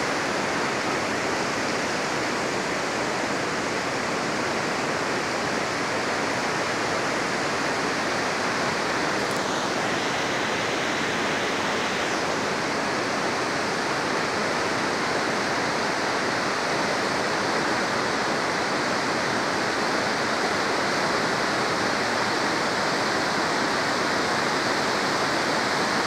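River rapids rushing steadily, a constant even sound of fast, churning water.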